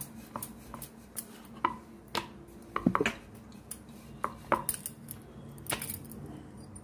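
Wooden rolling pin rolling out wheat dough on a round wooden board, making irregular clacks and knocks several times a second.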